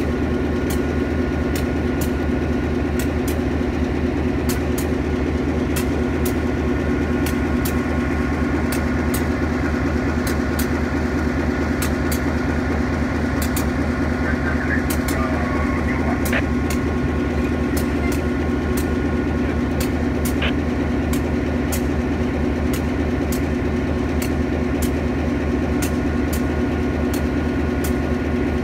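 EMD GP7 diesel-electric locomotive's 567-series two-stroke V16 engine idling steadily, with light clicks recurring about twice a second.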